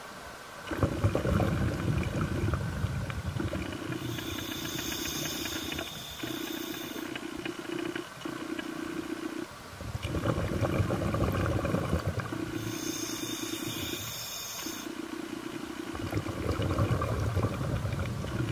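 Scuba diver breathing underwater through a regulator: each breath is a hiss of inhaled air, then a burst of bubbling as the exhaled air escapes. There are three bubbling exhalations and two hissing inhalations.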